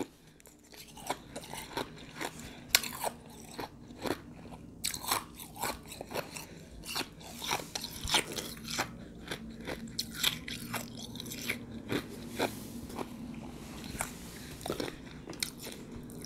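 Close-miked crunching and chewing of a mouthful of crushed ice with juice, many sharp irregular crunches as the ice breaks between the teeth.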